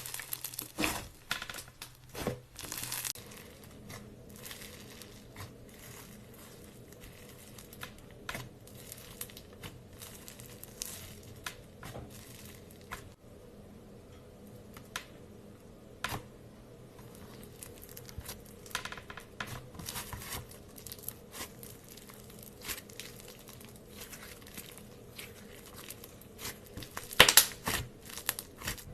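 Clay slime being worked by hand, giving irregular sticky crackles and tearing sounds as it is stretched and pressed, with a louder run of crackling near the end.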